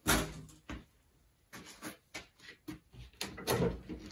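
Knocks and clatter of things being handled, a sharp knock at the very start being the loudest, then scattered smaller knocks and a short cluster of clatter about three and a half seconds in.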